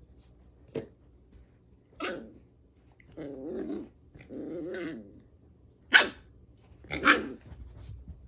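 Scottish Terrier barking and growling in play at a toy. There are single sharp barks about one and two seconds in, two longer growls in the middle, and two loud barks near the end, the last trailing into a growl.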